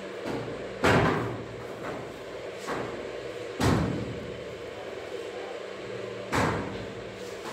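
Three loud thuds, about one every two and a half to three seconds, with fainter knocks between them, over a steady low hum.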